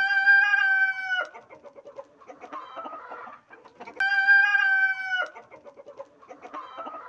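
Australorp chickens calling: two long calls held at one pitch, about four seconds apart, each breaking off abruptly. Softer clucking runs between them.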